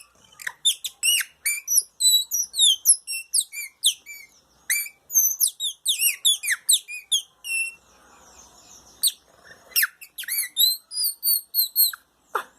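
Bird-call imitation made by sucking air through a thin plastic strip held against the upper lip: fast, high-pitched chirps and whistles that mostly fall in pitch. There is a short pause about two-thirds of the way through, then more chirps with quickly repeated notes.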